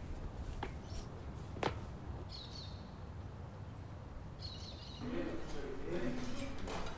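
A few sharp knocks and clicks in the first two seconds, in keeping with a climber's hands and shoes on an iron railing fence. A bird chirps briefly twice over a steady low rumble. From about five seconds, a lower wavering pitched sound begins.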